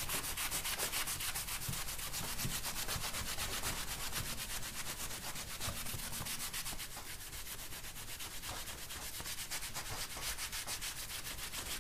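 Acetone-soaked cloth rag scrubbed back and forth in quick, even strokes over a flat anodized aluminium sheet on paper towels, rubbing off the varnish resist.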